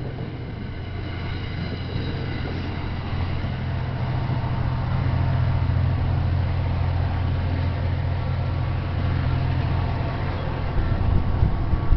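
EMD GP40FH-2 diesel locomotive running with a steady low drone that grows slightly louder. Wind buffets the microphone near the end.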